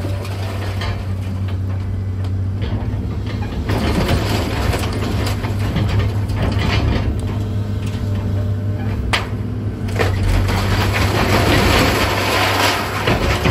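Komatsu 200 excavator's diesel engine running steadily under continuous crunching and cracking as house debris is crushed and broken, with a sharp crack about nine seconds in.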